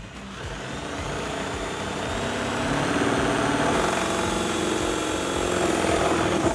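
Cordless drill running steadily as it drills a pilot hole out wider with an 11/32 inch bit through the car's deck lid; its pitch drops slightly about four seconds in.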